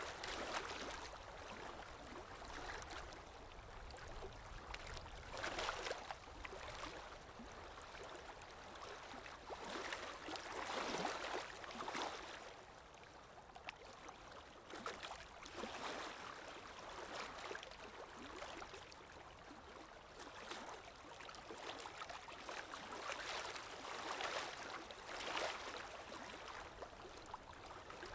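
Water ambience: a stream flowing and gurgling, swelling and fading every few seconds.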